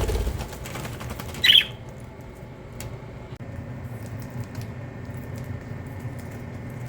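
Budgerigar giving a single short, loud squawk about one and a half seconds in, over a steady low rumble with faint scattered ticks.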